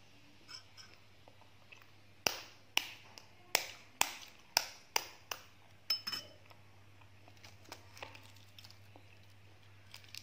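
A balut (fertilized duck egg) being tapped against something hard to crack its shell: about nine sharp clinking taps, roughly two a second. These give way to faint crackling as the cracked shell is picked off.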